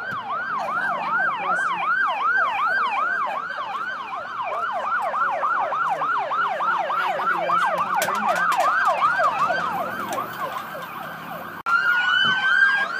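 Emergency vehicle siren in a fast yelp, its pitch sweeping up and down about three to four times a second, with more than one siren overlapping. Near the end, after an abrupt break, a slower, steadier rising wail.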